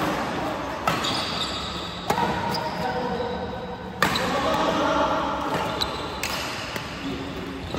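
Badminton rackets hitting a shuttlecock in a doubles rally: sharp smacks about every one to two seconds, echoing in the hall.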